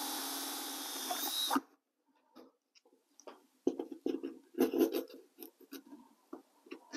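Cordless drill running steadily as it bores a hole through masonite fascia, stopping suddenly about a second and a half in. Then a scatter of light clicks, taps and rustles from handling the drill and the panel.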